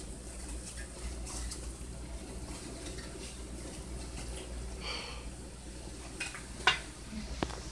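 Hot frying oil sizzling faintly in a skillet, with a few sharp clicks of a slotted metal spatula; the loudest click comes near the end.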